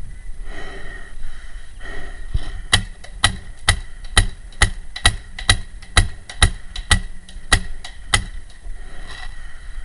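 Paintball marker firing a steady string of about a dozen sharp shots, roughly two a second, starting about three seconds in and stopping about eight seconds in.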